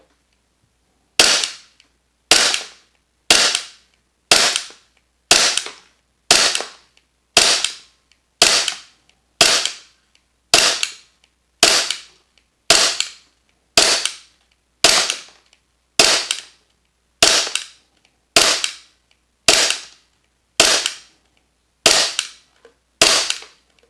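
VFC/Umarex Glock 45 gas blowback airsoft pistol firing single shots at a steady pace of about one a second, each a sharp crack of the gas discharge and slide cycling, about twenty in all. This is a full magazine fired with the factory cylinder bulb.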